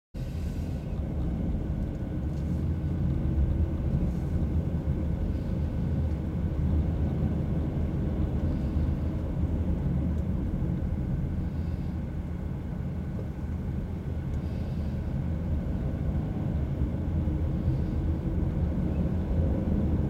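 Steady low rumble of a car's engine and tyres heard from inside the cabin while driving.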